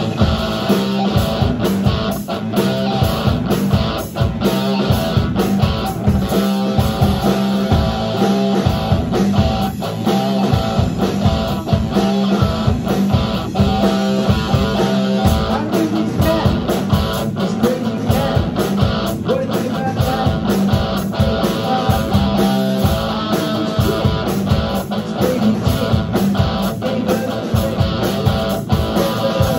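Live rock band playing loudly: distorted electric guitar over a steadily beating drum kit.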